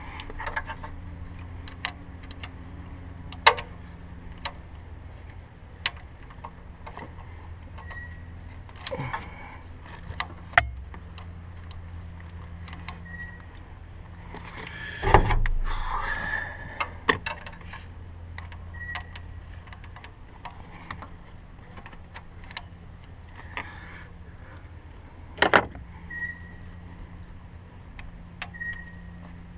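Scattered metal clicks and knocks of hand tools and parts being worked in a diesel engine's fuel injector area while fitting an injector hold-down clamp and bolt. There is a louder clatter about halfway through and another sharp knock later, over a steady low hum.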